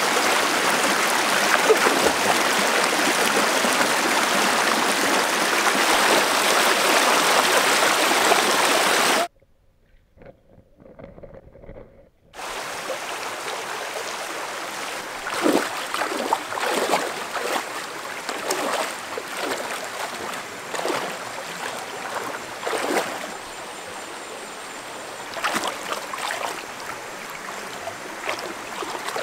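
Shallow rocky stream running loudly, then cut off abruptly after about nine seconds to near quiet for about three seconds. After that, water runs more gently, with irregular splashes and sloshing as hands reach into the water among the stones.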